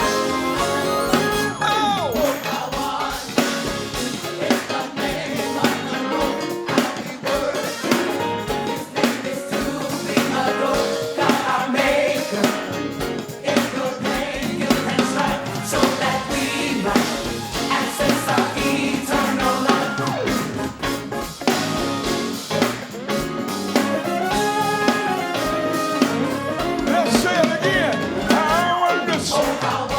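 Live gospel band music with a drum kit keeping a steady beat, and singing coming in near the end.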